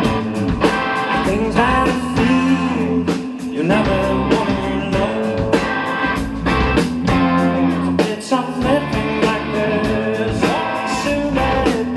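Live rock band playing loudly: electric guitars with bending notes over a steady drum beat.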